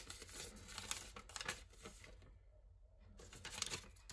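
Faint rustling and crinkling of packaging being handled, with scattered light clicks and a short pause a little past the middle.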